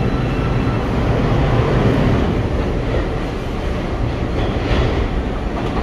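R142 subway train standing at the station platform, with a steady low rumble and hum of equipment and station noise.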